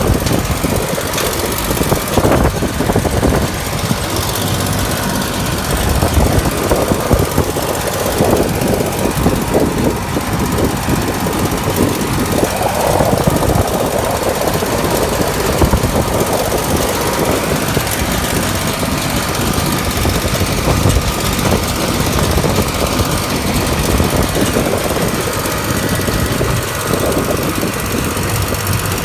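Massey Ferguson 8480 tractor engine running under load, pulling a New Holland D1010 large square baler as it bales hay, with the baler's mechanical knocking mixed into the steady engine noise.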